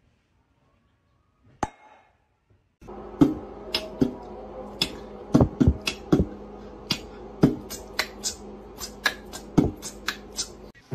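A single pop from a bottle's cork being thumbed out, about one and a half seconds in. From about three seconds on comes a run of sharp, irregular clicks over a steady low hum: a cat's claws clicking on a tiled floor as it walks.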